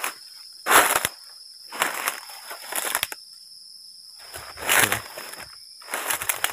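Footsteps pushing through tall dry grass and weeds, five rustling, crunching steps spaced about a second apart.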